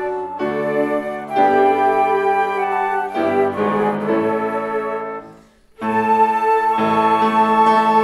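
Flute ensemble playing a chorale in sustained, held chords. The sound dies away to a short pause about five and a half seconds in, then the next chord enters.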